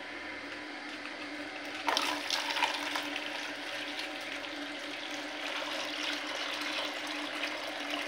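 Water poured in a stream from a container into a plastic bowl, splashing steadily; the pour starts about two seconds in.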